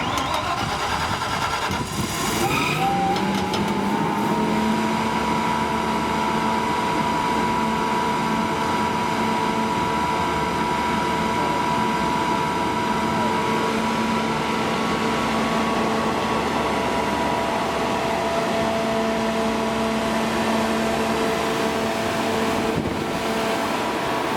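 Natural gas Ford V8 engine of a Kohler 100 kW generator set starting up, rising in pitch over the first few seconds and settling into a steady run at its governed 1800 rpm, with a steady whine over the engine note.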